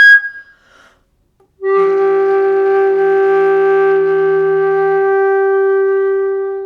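Solo concert flute: a high held note breaks off just after the start, then after more than a second of quiet a long low note is held steady, with a quieter, lower second tone under it for its first three seconds or so, before the note fades out at the end.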